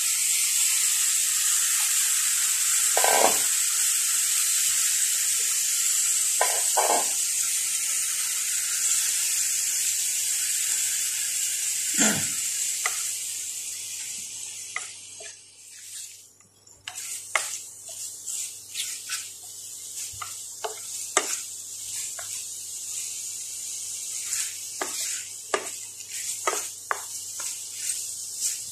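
Raw squid dropped into hot oil and red curry paste in a stainless steel pan, setting off a loud sizzle that slowly dies down over about fifteen seconds. A wooden spatula stirs the squid through the pan, with many short knocks and scrapes over a quieter sizzle in the second half.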